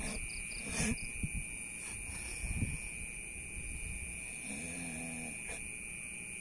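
A man in a trance breathing roughly with throaty grunts, then a short low moan about four and a half seconds in; a steady high-pitched drone runs underneath.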